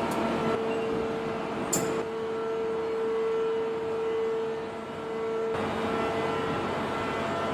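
Steady machine drone with a strong held tone, typical of heavy forging-plant machinery running, and a sharp metallic click just under two seconds in.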